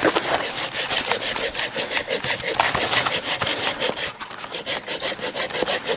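Hand saw cutting through wood with quick, even back-and-forth strokes, easing briefly a little after four seconds.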